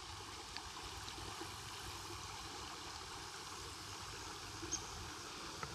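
Steady rush of a shallow creek running over a riffle.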